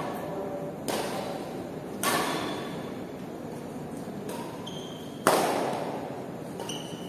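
Badminton rally: rackets striking the shuttlecock three times, the third hit the loudest, each ringing on in the hall's echo. Short squeaks of shoes on the court come between the hits.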